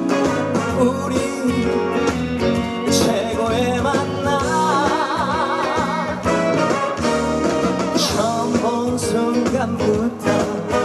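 Singer with a band backing track, performing a song, likely a trot number; about halfway through a sung note is held with wide vibrato.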